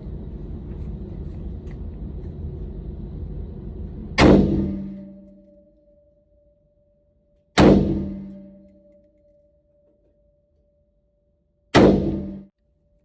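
Three single shots from an AR-15 rifle, fired slowly about three to four seconds apart, each a loud crack with a ringing tail. The first comes about four seconds in and the last near the end.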